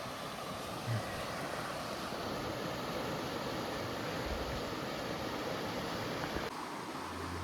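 Steady rushing outdoor noise. It cuts off abruptly near the end, and low, steady background music comes in.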